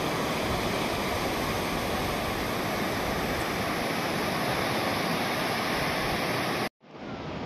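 Sea surf washing onto a sandy beach: a steady, even rush of breaking waves that cuts off suddenly near the end, leaving a fainter outdoor hiss.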